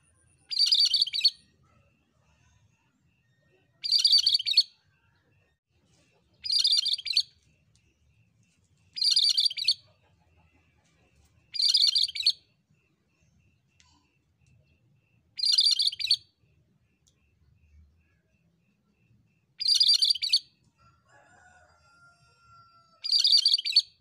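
Cucak Kerinci singing short, bright, repeated phrases, eight of them, about one every three seconds.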